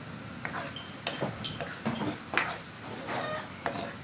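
Ladle scraping and clinking against an aluminium wok as shell-on snails are stirred, about half a dozen irregular clacks and scrapes with the shells clattering.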